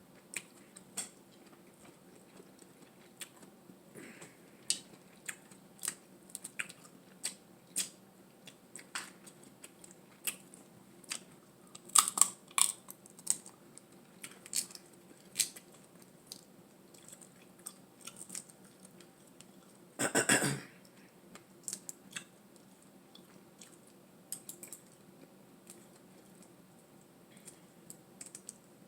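A person eating close to the microphone: wet chewing and mouth clicks at an irregular pace, with a denser run of louder clicks about twelve seconds in and one louder noise lasting about half a second near twenty seconds.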